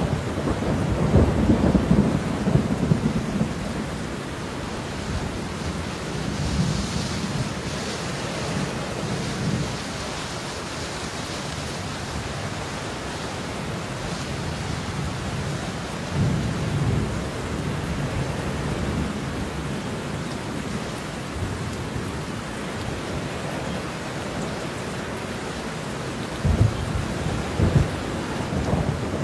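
Steady rain falling, with thunder rumbling. Low rumbles swell and fade several times, and there are sharper, louder claps near the end.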